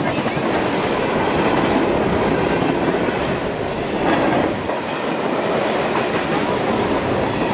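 Freight train of covered hopper cars rolling past close by: a steady, loud noise of steel wheels running on the rails.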